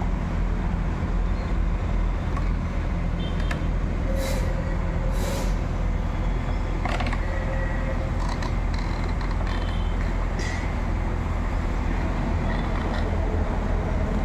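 JCB backhoe loader's diesel engine running steadily while its boom lifts and shifts a tree. Two short hisses come about four and five seconds in, with a few light clanks.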